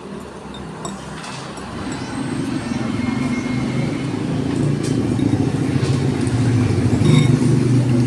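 A motor vehicle engine running close by, its low rumble growing steadily louder over several seconds.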